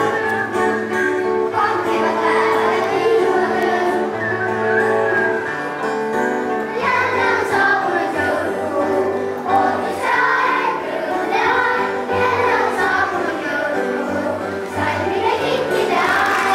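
Children's choir singing together over an instrumental accompaniment of held chords and bass notes.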